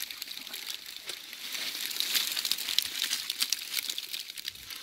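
Dense crackling and rustling as a fyke net packed with live fish is handled on snowy ice.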